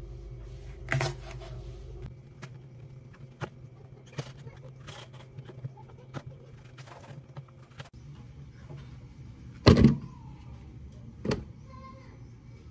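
Chef's knife cutting eggplant on a plastic cutting board: a run of light, irregular knocks of the blade on the board. Near the end come two louder thuds a second and a half apart as a plastic tub is handled in a stainless steel sink, over a low steady hum.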